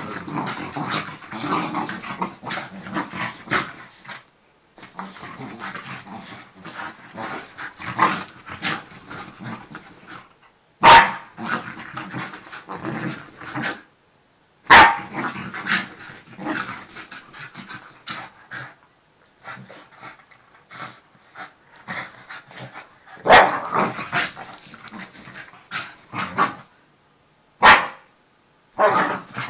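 Two Scottish terriers play-fighting, growling and yapping in an excited run of sound that comes and goes, with a few short, loud barks spread through it.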